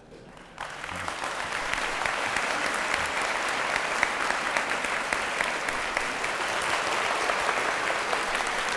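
A hall audience applauding: a dense, steady clapping that breaks out suddenly about half a second in.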